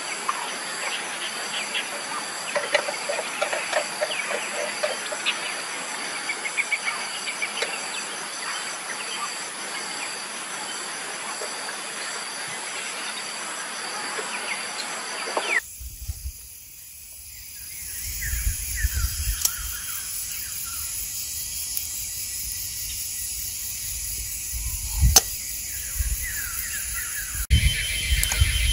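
Outdoor ambience at a wood cooking fire: a steady high-pitched drone with many small crackles and clinks. About halfway the sound cuts to a low rumble with a few sharp clicks.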